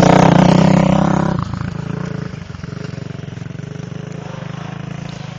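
ATV engine running loud for about a second and a half, then dropping to a quieter, steady run.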